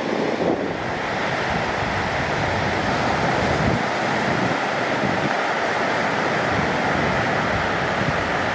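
Ocean surf: a steady rush of small waves breaking and white water washing in.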